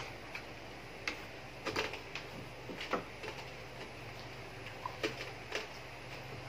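Eating sounds of a deep-fried frog meal: a scattering of short, irregular clicks and crackles from chewing and handling the food, over a steady low hum.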